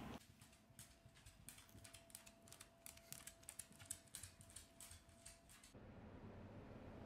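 A cat chewing and tearing blades of cat grass: a quick, irregular run of soft, crisp clicks and snaps that stops about two-thirds of the way through, leaving quiet room tone.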